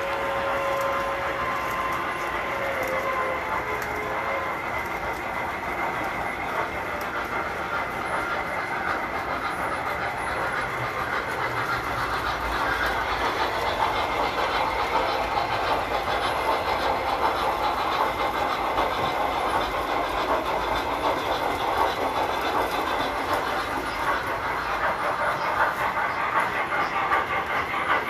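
Tinplate toy trains running on metal track: a steady rolling clatter of wheels and motors, with a held tone that stops about a second in.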